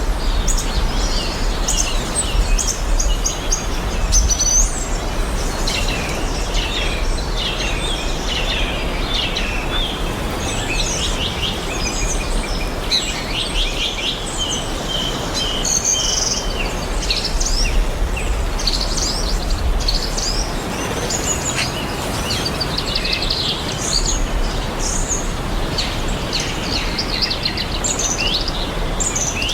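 Several birds chirping and trilling in an overlapping chorus, over a steady background hiss and a low rumble.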